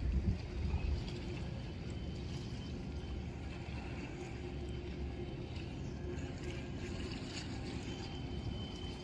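Steady low engine rumble from a vessel in the harbour, with a thin high tone briefly near the end.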